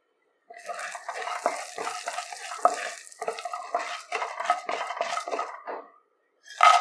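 Spoon stirring and scraping in a metal cooking pan, a quick run of short scrapes and clinks, ending with one louder knock of metal on metal.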